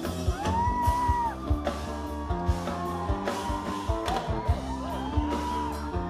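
Live fusion rock band playing, with electric guitars, bass, drum kit and tabla. A singer holds a long arching note twice, once near the start and once near the end.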